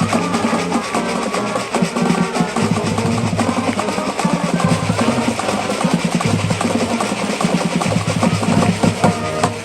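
High school marching band playing, with the drumline's snare and bass drums prominent under the brass; the music stops right at the end.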